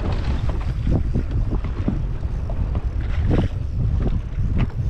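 Wind buffeting the microphone in a steady low rumble on a boat, with choppy water slapping irregularly against the hull.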